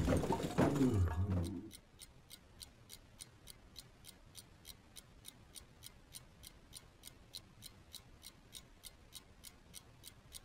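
A clock ticking in a quiet room: fast, even ticks, a little over three a second. Before the ticking starts, the fading tail of a thud dies away in the first second and a half.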